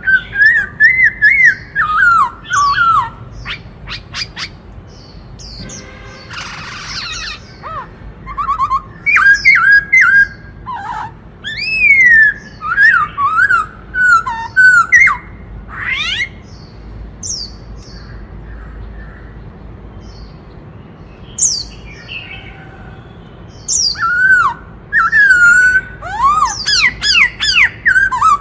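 Black-throated laughingthrush singing: loud whistled phrases that glide up and down, mixed with quick higher notes and harsh calls, falling quiet for a few seconds past the middle before starting again.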